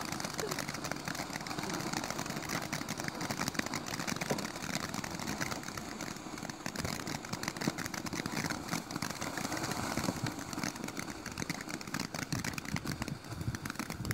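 Fountain firework spraying sparks: a steady hiss thick with rapid crackles, continuous throughout.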